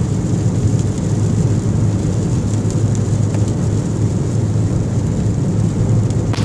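Heavy desert rain pouring steadily, with a constant low rumble under the hiss of the downpour and scattered drop ticks.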